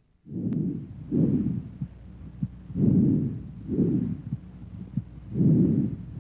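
Bronchovesicular breath sounds heard through a stethoscope on a healthy chest: about three breaths, each a soft, low inspiratory rush followed by an expiratory rush of about equal length. Faint heartbeat thuds fall between the breaths.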